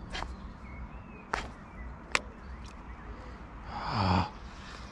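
A man lets out a heavy, frustrated sigh with a short falling groan about four seconds in, after a pike has struck and been missed. A few sharp clicks come before it.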